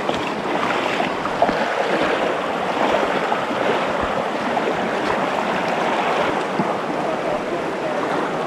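Shallow rocky river running steadily, with occasional small splashes of boots wading through it.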